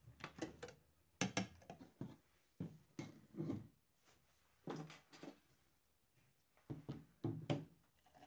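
A series of short knocks and clunks from kitchen items being handled, among them a plastic blender jar being picked up and brought over a glass.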